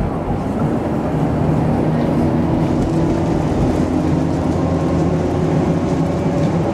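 Steady engine hum and road rumble heard from inside a moving road vehicle, running evenly throughout.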